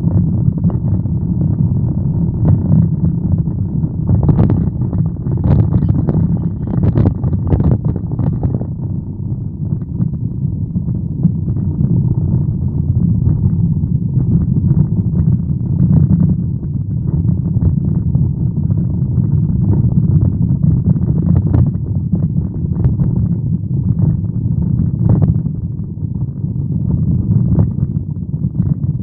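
Car driving, heard from inside the cabin: a steady low rumble of road and engine noise, with a cluster of light knocks and rattles about four to eight seconds in.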